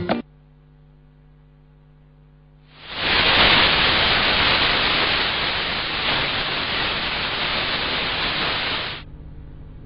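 A faint electrical hum, then about three seconds in a loud, steady hiss of static that cuts off suddenly about nine seconds in, leaving the hum again.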